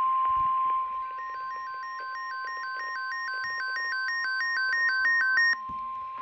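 NOAA Weather Radio 1050 Hz warning alarm tone sounding steadily, heralding a severe thunderstorm warning. From about a second in until near the end, a second alert beeps over it, switching rapidly back and forth between two higher pitches.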